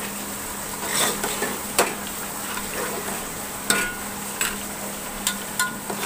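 Mutton and potatoes frying in masala in a metal pot, with a steady sizzle, while a metal ladle stirs and scrapes through it. About six sharp clacks of the ladle against the pot, two of them ringing briefly.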